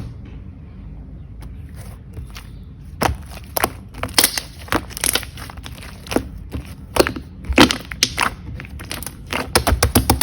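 Green slime worked by hand, squeezed and poked, giving irregular sharp pops and crackles, with a quick run of pops near the end.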